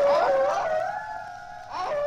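Eerie Halloween sound effect: a howl-like wailing tone that wobbles rapidly up and down over a steadier held tone. It is loudest at the start, fades, and swells briefly again near the end.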